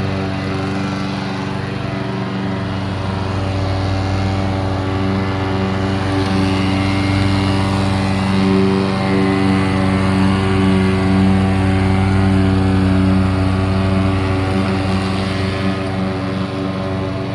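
Walk-behind lawn mower's small engine running steadily as it is pushed across the grass, cutting.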